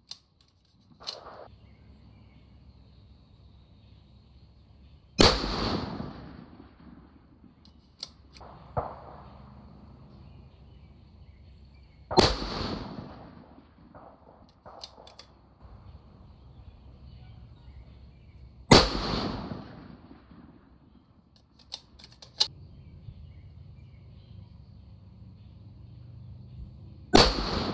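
Four rifle shots from a Masterpiece Arms BA PMR Pro bolt-action rifle in 6mm Creedmoor, spaced about six to seven seconds apart, each dying away over about a second. Between shots come pairs of sharp metallic clicks, typical of the bolt being worked to chamber the next round.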